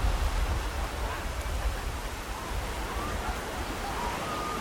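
Ocean surf washing onto a beach: a steady rush of breaking waves with a deep rumble that eases off about halfway through.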